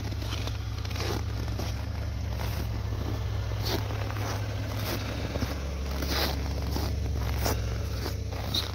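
Footsteps squeaking and crunching in hard-frozen snow, about one and a half steps a second, over the steady low hum of a Hyundai Santa Fe Classic V6 idling just after a cold start at −32 °C.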